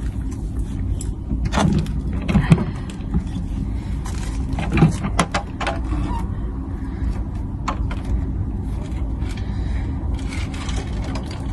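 Light knocks and clicks of plastic humidifier parts being handled and the water tank's cap being fitted, over a steady low hum.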